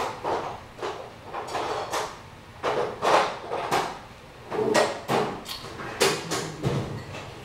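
Metal tool chest drawers sliding open and shut, with tools clattering and clunking inside as they are rummaged through, a string of short rattles and knocks.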